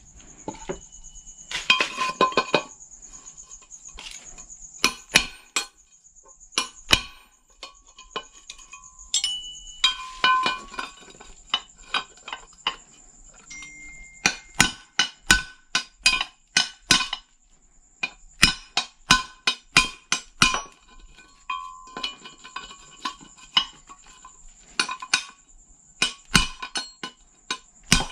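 Hammer tapping on a motorcycle cover to crack and knock out its glass lens: sharp knocks, some single and some in quick runs of several taps, the busiest stretch about halfway through.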